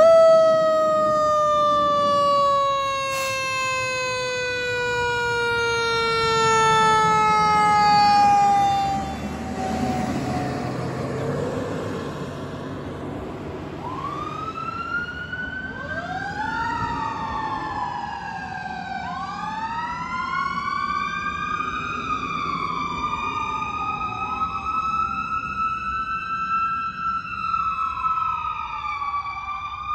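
Fire engine sirens on a 2010 HME/Ferrara pumper. A mechanical siren, just wound up, coasts down in pitch for about ten seconds. From about halfway, an electronic siren wails, rising and falling, fainter as the engine pulls away.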